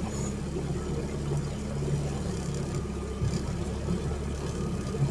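Outboard motor of an inflatable boat running steadily under way, a continuous low drone.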